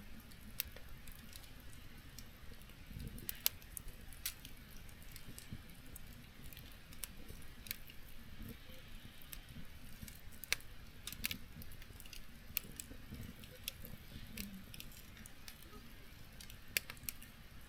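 Campfire crackling: wood snapping and popping in sharp, irregular clicks a few times a second over a low, steady rumble of the burning fire.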